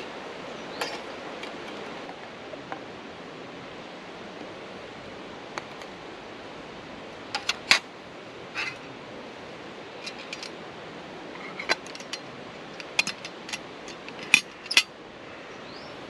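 Stainless steel camping cookware clinking: a pan and lid knocked against a pot and set down on it, a series of sharp metallic clinks, each ringing briefly, most of them in the second half. A steady hiss runs underneath.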